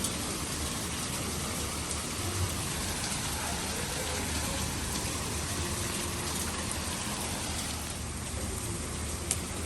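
Steady rain falling, an even hiss with a few faint drop ticks and one sharper tick near the end.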